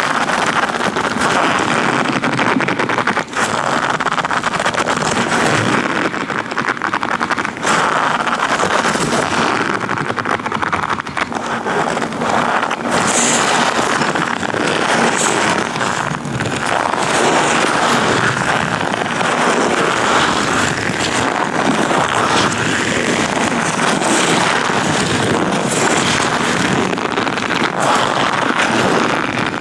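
Latex-gloved hands rubbing and handling right at the microphone: a dense, continuous rustling with scattered sharp clicks and snaps.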